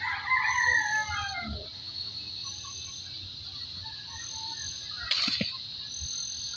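A rooster crows once, a call of under two seconds that falls in pitch at the end, over a steady high drone of insects with a short high chirp repeating every second and a half or so. A brief rustling thump comes about five seconds in.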